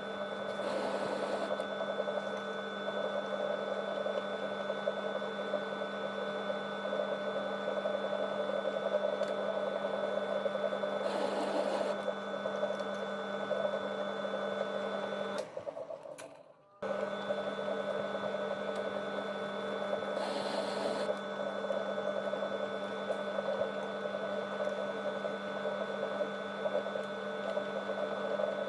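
Metal lathe running steadily with a hum and whine. It cuts out about halfway through and starts again about a second later.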